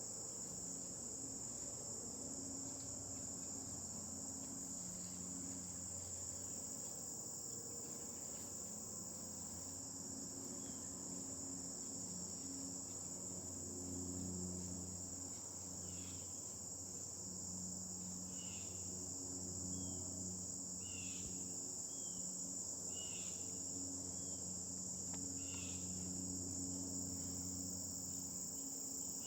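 Insect chorus of crickets trilling steadily and high-pitched, with short high chirps repeating about once a second through the second half.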